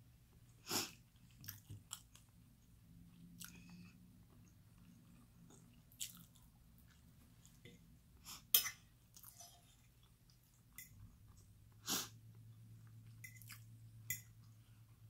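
Close chewing and eating sounds of a person eating rice and cheese enchiladas with a fork. Short sharp clicks and smacks are scattered through, the loudest a little past halfway, over a faint steady low hum.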